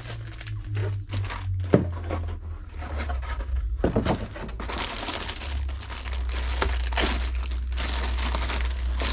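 Crinkling and rustling of packaging being handled, with a few sharp knocks in the first two seconds; the crinkling becomes dense and continuous about four seconds in. A steady low hum runs underneath.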